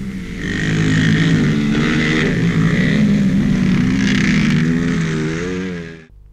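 Motocross motorcycle engines running and revving, their pitch wavering up and down, on an old newsreel soundtrack. The sound cuts off abruptly about six seconds in.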